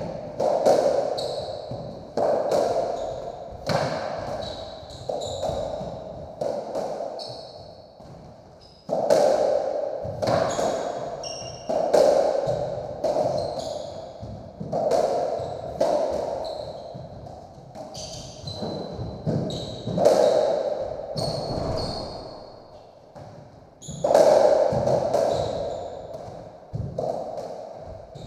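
A racketball rally on a squash court: the ball is struck by the rackets and smacks off the walls and floor every second or so, each hit ringing in the enclosed court. Short high squeaks of court shoes come between the hits.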